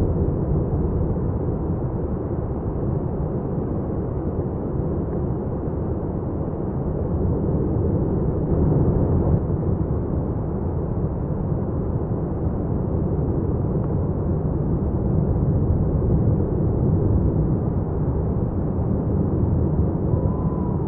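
Lava fountain at Etna's South-East crater during a paroxysm, giving a steady low rumble.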